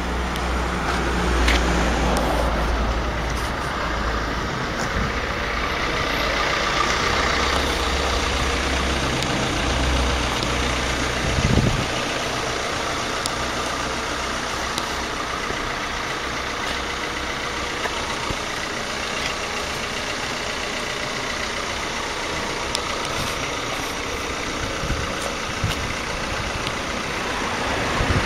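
Case IH 2140 Pro tractor's 4.0-litre four-cylinder diesel engine idling steadily, with a single thump about eleven seconds in.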